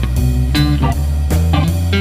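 Background music: plucked guitar over a steady bass line with a beat.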